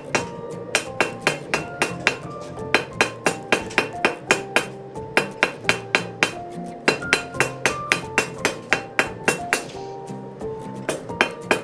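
Hand hammer striking a hot quarter-inch steel rod on an anvil in quick repeated blows, about three to four a second with a few short pauses, each blow ringing briefly. The rod's corners are being knocked down into an octagon and rounded off.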